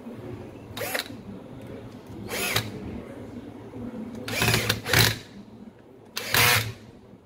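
Makita FS2700 drywall screwdriver, fitted with a new switch and carbon brushes, run in a series of short trigger bursts. Each time the motor spins up with a whine and winds straight back down.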